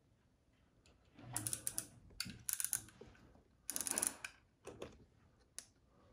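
Wallpaper mural paper crackling and rustling as hands work a cut edge of it, in three short bursts of dense clicks with a few single clicks near the end.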